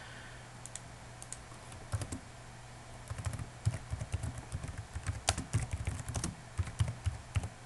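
Typing on a computer keyboard: a run of quick, irregular key clicks, busiest from about two seconds in, over a faint steady hum.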